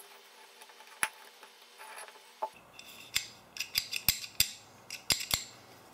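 Small sharp metallic clicks of an AR-15 magazine catch and its button being worked in the lower receiver. A few single clicks come first, then a quicker scatter of clicks from about halfway on.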